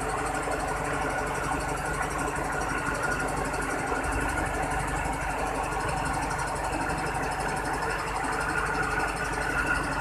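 Diesel engine of a Caterpillar-engined Alsthom locomotive of the State Railway of Thailand, running steadily as it draws a freight train closer, growing a little louder near the end.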